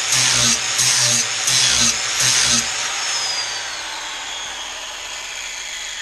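Angle grinder with a 40-grit flap wheel grinding the bevel of a steel lawn tractor mower blade in repeated strokes, about one every two-thirds of a second. About three seconds in, the grinding stops and the grinder's motor winds down with a slowly falling whine.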